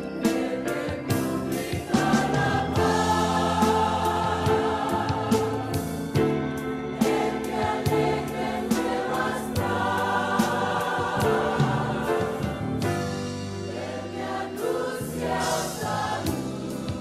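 A choir singing a gospel hymn over instrumental accompaniment with a steady beat.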